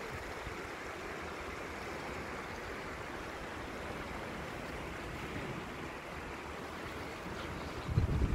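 Floodwater rushing through a street, a steady, even rushing noise. A low buffet of wind on the microphone near the end.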